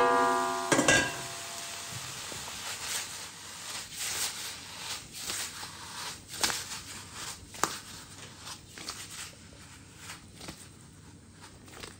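Beef sizzling in a carbon-steel wok while a metal spatula scrapes and clatters against the pan as the meat is stirred and tossed; the sizzle fades and the scrapes thin out toward the end. A brief ringing tone opens it.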